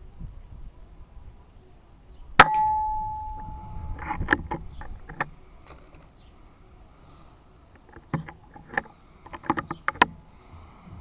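A single shot from a Daystate Red Wolf PCP air rifle firing a .22 slug: a sharp crack with a ringing metallic tone that fades over about a second. It is followed by two runs of sharp metallic clicks.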